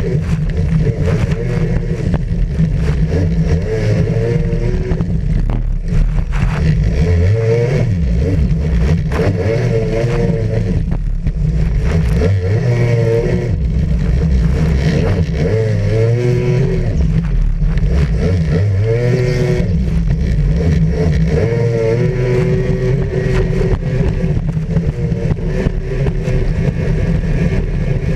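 Racing jet ski engine running hard at high revs, its pitch falling and rising again repeatedly as the throttle is eased and opened, over a constant rush of wind and water.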